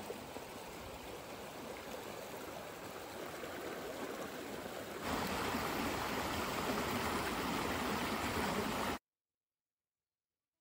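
Steady rushing of running stream water. It steps up louder about five seconds in and cuts off abruptly to silence near the end.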